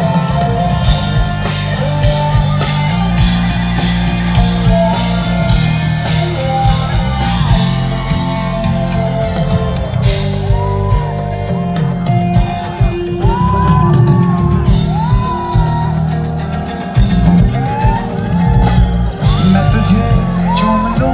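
Live band music with a steady beat: drums, bass and guitars played through the concert sound system. A male singer's voice comes in about halfway through.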